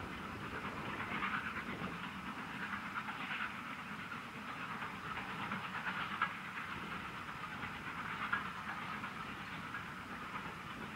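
LNER V2 2-6-2 steam locomotive working a passenger train, its exhaust a steady, fluctuating chuffing rush. Two brief knocks stand out about six seconds and eight and a half seconds in.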